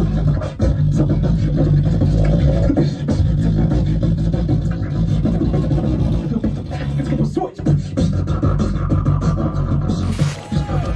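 Two beatboxers performing a duo routine into handheld microphones: a heavy bass line with rapid vocal-percussion beats. About ten seconds in it cuts abruptly to other band music.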